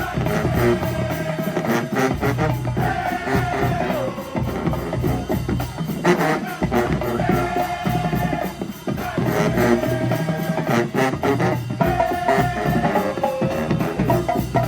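Music with a steady drum beat and a short melodic phrase that repeats about every four seconds.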